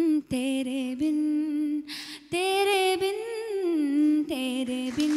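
A woman singing a few phrases of a melody unaccompanied into a microphone, holding notes with short breaks between the phrases.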